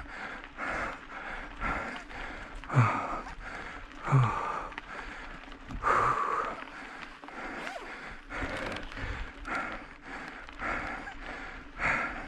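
A cyclist breathing hard, heavy panting breaths about once a second with two short low groans a few seconds in, from the effort of pedalling a mountain bike uphill.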